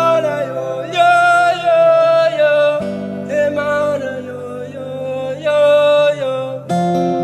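A song's instrumental passage: acoustic guitar chords that change every few seconds, under a held, wavering melody line.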